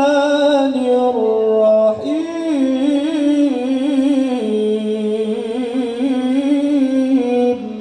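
A man reciting the Quran in the melodic tilawah style, drawing out long ornamented notes with a wavering trill. He breaks for breath about two seconds in, and his voice stops just before the end.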